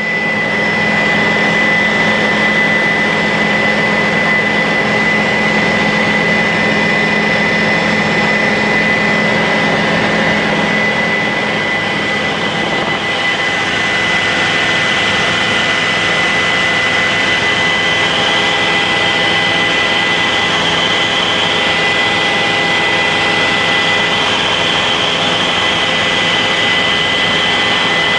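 Helicopter engine and rotor noise heard inside the cabin in flight: a loud, steady drone with a high, steady whine. The tone changes slightly about halfway through.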